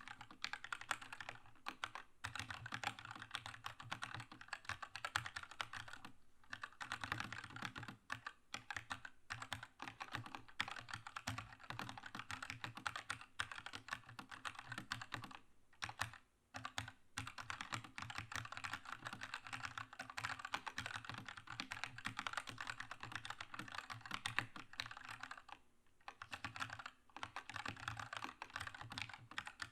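Keychron K2 mechanical keyboard with red linear switches being typed on continuously, a fast stream of key clacks with brief pauses a few times.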